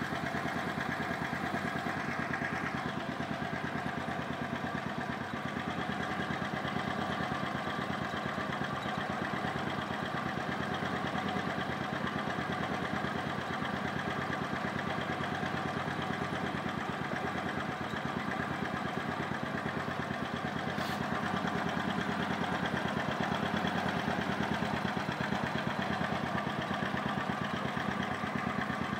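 A 150 cc scooter engine idling steadily while its belt-drive transmission is checked for an abnormal noise. There is one brief click about three-quarters of the way through.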